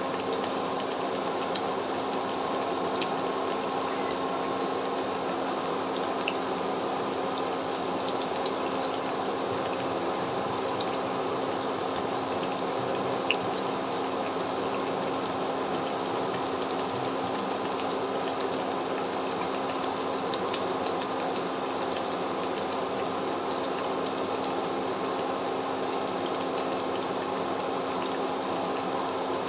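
Hot oil bubbling and sizzling steadily around cubes of potato-and-flour dough deep-frying in a pan. A low steady hum runs underneath, with a few faint light clicks and one slightly louder tap about thirteen seconds in.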